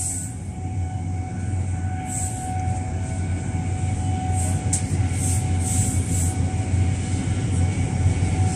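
High-speed train running at speed, heard inside the passenger carriage: a steady low rumble with a faint steady whine. Short airy hisses swell up a few times.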